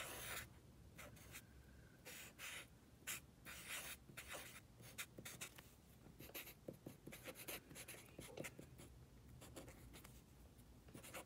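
Black felt-tip marker drawing on lined paper, then writing letters near the end: many short, faint, irregular strokes.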